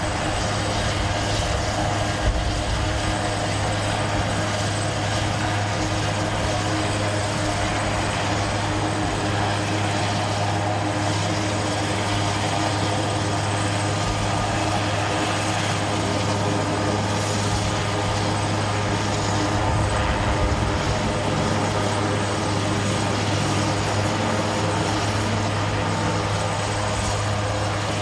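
Super Puma twin-turbine helicopter running on the ground after landing, its main rotor still turning. It makes a steady drone with a constant low hum and a thin high whine.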